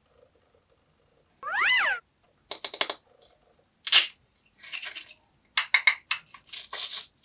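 One meow-like call, rising then falling in pitch, followed by a run of short raspy rips: the velcro pads on toy grape pieces being pulled apart and pressed back together.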